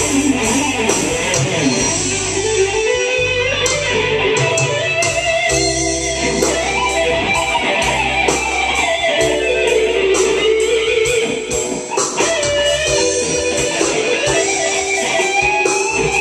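Les Paul-style electric guitar played through an amp, improvising a lead line with bent notes and vibrato over a backing jam track of drums and bass.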